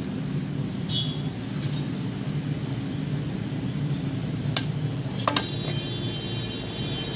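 Curry boiling in a steel kadai over a wood fire, a steady low rumble, with two sharp metal clinks against the pot about four and a half and five seconds in.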